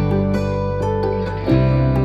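Soft instrumental background music: sustained chords with plucked notes over them, the chord changing about one and a half seconds in.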